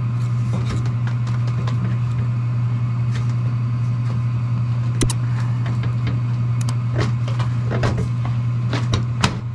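Gas furnace running after its pilot sensor has been replaced, with the burner lit and the blower fan giving a steady low hum. A few light knocks and clicks come over it about halfway through and near the end.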